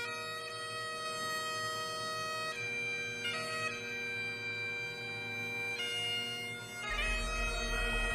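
Bagpipe music: slow, long held melody notes over a steady drone, changing note a few times. A low rumble comes in near the end.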